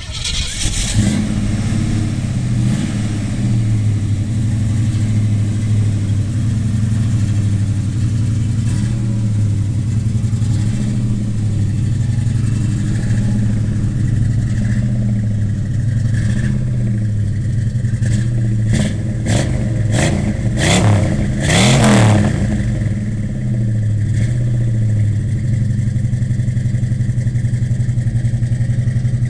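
Ford 302 (5.0 L) small-block V8 with Flowmaster mufflers firing up, then idling with a note that slowly rises and falls. About two-thirds of the way in come a handful of quick throttle blips, the last one the biggest, before it settles into a steady idle.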